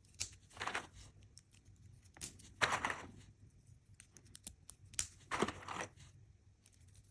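Three short rustling, crinkling noises a couple of seconds apart, with a few sharp clicks between them: handling noise.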